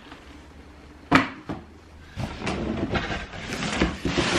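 Cardboard shoebox being handled: a sharp knock about a second in, then rustling and scraping that grows louder toward the end.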